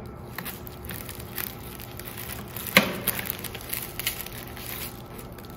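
A knife cutting through a red onion: irregular crunching and crackling of the crisp layers and dry skin, with one sharper snap about three seconds in.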